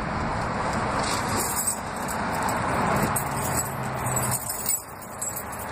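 House keys jangling and clicking as they are worked into a front-door lock, over a steady outdoor hiss; a low hum comes in about three seconds in and lasts about a second and a half.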